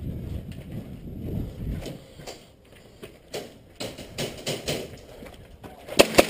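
Footsteps while walking, with rumble from the camera being handled at first, then a quick run of loud sharp clicks or knocks near the end.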